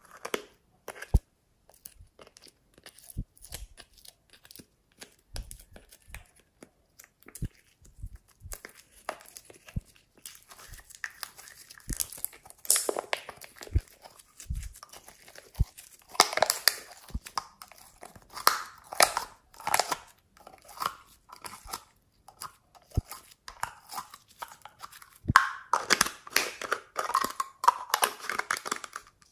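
Glossy glitter slime being pulled and squeezed out of a small plastic container, with sticky crackles from the slime and clicks and crinkles from the plastic. Scattered small clicks at first, then denser, louder stretches of crackling around the middle and near the end.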